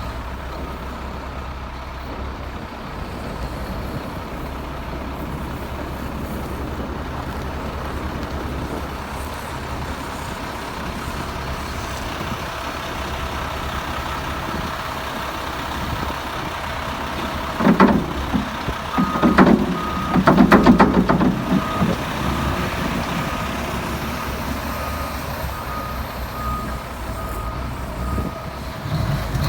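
Heavy diesel equipment running steadily, with a backup alarm beeping in the second half. A few loud, rough surges come just before the beeping starts.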